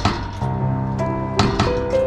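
Background music with held notes and a sharp percussive strike at the start and again about a second and a half in.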